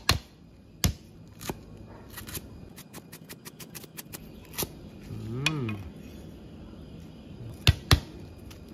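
Large knife chopping lemongrass stalks on a thick wooden chopping block: single sharp chops spaced out, lighter taps between them, and two loud chops in quick succession near the end. A brief hum-like voice sound rises and falls in pitch around the middle.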